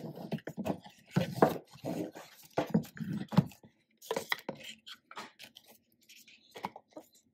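Stiff cardboard album boxes and their paper contents being handled: a box lid lifted and set back, with card and paper rustling and a string of short taps and knocks, sparser toward the end.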